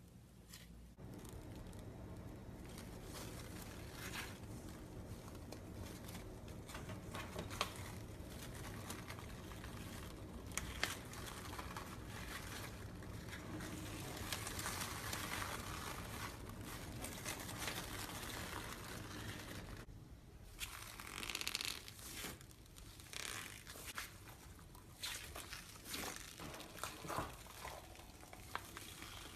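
Slime being squeezed and stretched by hand, giving a steady crackling, squishing texture for most of the stretch, then broken into separate pops and clicks for the last several seconds.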